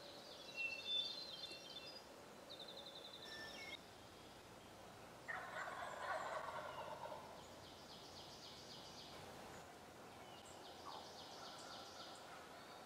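A wild turkey tom gobbles once, a rattling call of about a second and a half starting about five seconds in, with songbirds trilling high around it. Near the end a hen turkey starts yelping faintly.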